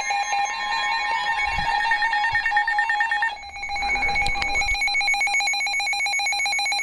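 Emergency Alert System attention signal: a loud, steady two-tone alarm with a harsh buzzing edge, sounding the start of a severe thunderstorm warning. Its tone changes slightly about three seconds in.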